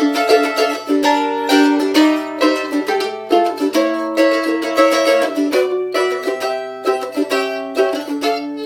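A Voight mandolin being played: a quick run of picked notes and chords, each with a sharp attack and a short ring.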